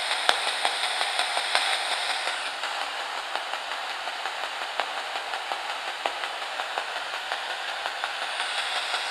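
Steady static hiss with faint, irregular crackling ticks from a handheld 'direct link' ghost-hunting device that is switched on.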